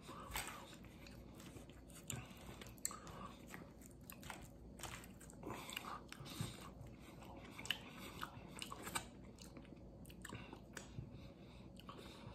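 Faint close-up chewing of a mouthful of burrito, with scattered short wet mouth clicks and smacks.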